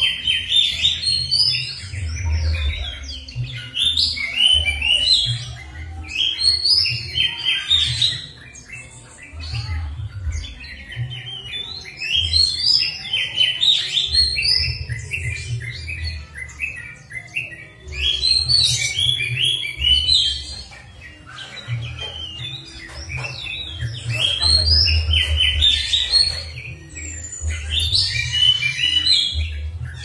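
Songbird singing a loud, varied song of rapid chirps and whistles in phrases of a second or two with short pauses between them, as played from a song-lure recording to set caged songbirds singing. A low rumble comes and goes beneath the song.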